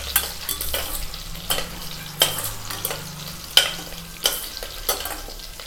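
Chillies, garlic and mustard seeds sizzling in hot oil in a stainless steel pressure cooker, while a metal slotted spoon stirs them, knocking and scraping against the pan about every three-quarters of a second. This is the tempering stage of frying spices in oil.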